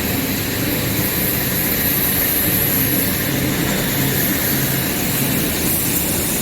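Steady drone of running rubber-hose production-line machinery (extruders, cooling tank and haul-off), with a constant high hiss and a low hum.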